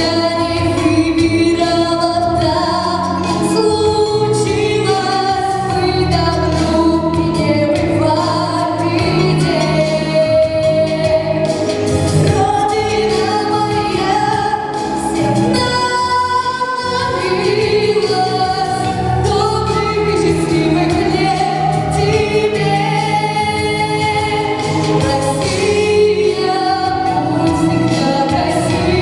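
Music: a song with several voices singing in harmony over instrumental backing.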